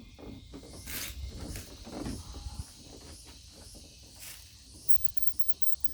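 Handling noise of a fog lamp being fitted into a plastic bumper opening: rustling and a few short scrapes, about a second in and again after four seconds.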